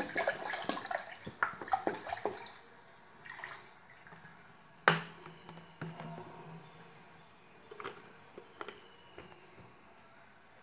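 Milk pouring from a plastic bottle into a steel pot, trickling and dripping off over the first couple of seconds. This is followed by a few scattered knocks and taps, the sharpest a click about five seconds in.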